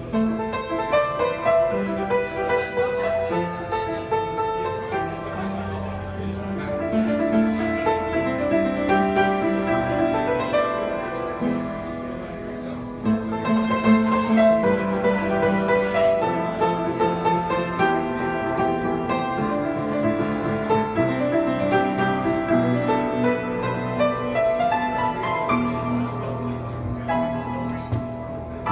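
Solo piano playing a continuous flowing run of notes and chords, growing a little louder just before halfway.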